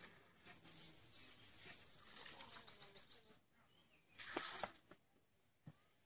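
Faint high insect chirring, steady at first and then breaking into rapid pulses before stopping just after three seconds in. A short hiss follows about four seconds in.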